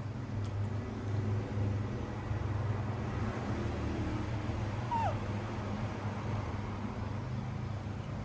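A baby monkey gives one short squeak that slides down in pitch about five seconds in, over a steady low hum.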